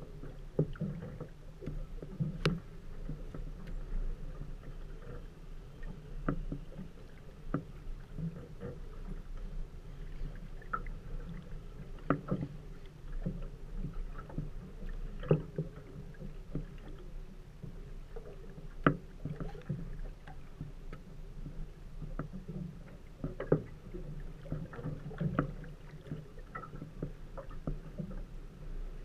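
A small aluminum fishing boat on the water: sharp knocks and clicks against the hull at irregular intervals, over a low steady rumble.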